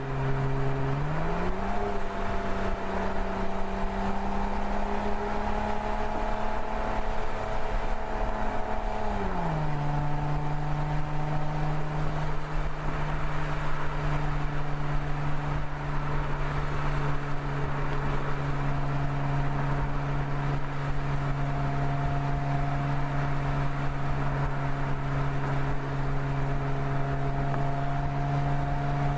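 Mercedes-Benz SL engine running at cruise under tyre and wind noise. About a second in, the engine note rises and holds higher; it drops back at about nine seconds and then stays steady.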